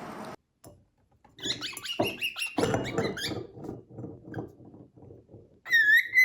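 An animal squeaking in a quick run of short high calls, followed near the end by a louder gliding call that dips and then rises.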